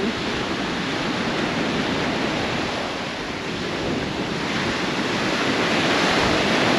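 Rough ocean surf breaking, mixed with steady wind, a continuous wash that eases slightly midway and swells louder towards the end.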